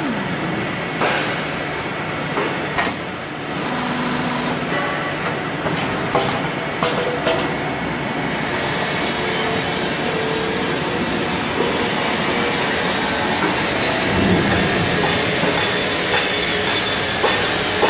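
Rain gutter roll forming machine running: a steady mechanical rumble of the rollers and drive, with scattered sharp clicks and knocks in the first half and a slightly louder, even run in the second half.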